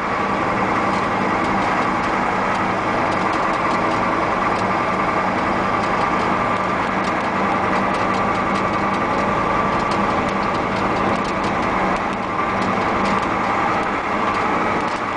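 Caterpillar V8 diesel of a Ford F800 truck running steadily at low road speed, heard from inside the cab, with occasional light clicks and rattles.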